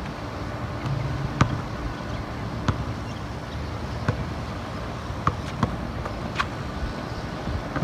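A basketball bouncing on an outdoor asphalt court, about half a dozen irregular sharp knocks over steady outdoor background noise.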